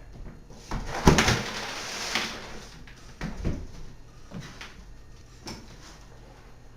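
Sugar-cube igloo crashing to the floor: a sharp thud about a second in, inside a rattling clatter of scattering cubes, then a few softer knocks.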